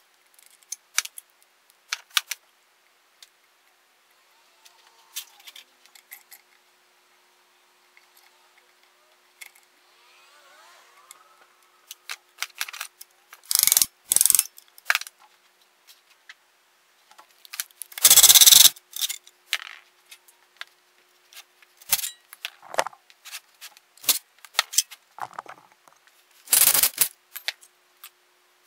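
Hand tools and metal parts being worked on a Briggs & Stratton I/C Series small engine during disassembly: scattered clicks and knocks, with a few louder harsh noises lasting up to a second, the loudest a little past halfway.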